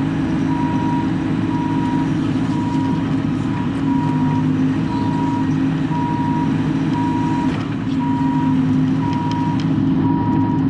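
Bobcat E42 mini excavator's diesel engine running steadily, heard from inside the cab, with its travel alarm beeping about every three quarters of a second: the machine is tracking.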